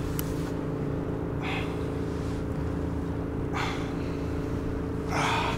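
Boat motor running steadily with a low, even hum. Three short rushes of noise break over it about every two seconds, the last the loudest.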